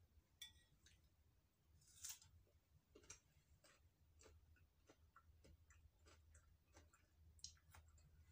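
Very faint small clicks and taps of a metal spoon against a bowl and a glass jar while green mango slices are dipped, with quiet chewing; a light ringing clink just under half a second in and a short scrape about two seconds in.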